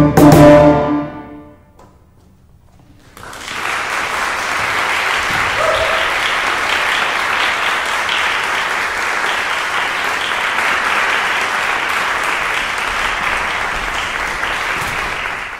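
Final loud chord from two tubas and piano cuts off about half a second in and dies away in the hall's reverberation. After a short quiet, an audience breaks into steady applause about three seconds in.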